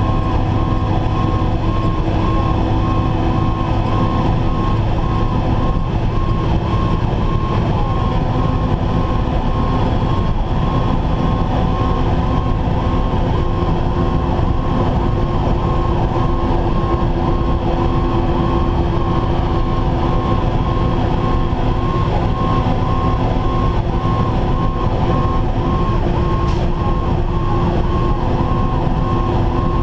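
Fire engine running under way with its siren sounding, a tone that cycles back and forth steadily over the continuous drone of the truck's engine.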